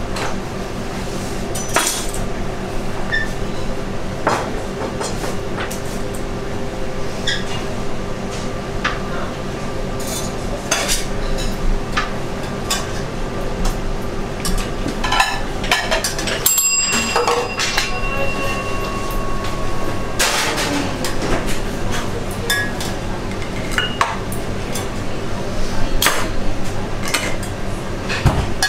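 Restaurant kitchen during service: scattered clinks and knocks of china plates and utensils over a steady machine hum, with a brief steady electronic-sounding tone a little past the middle.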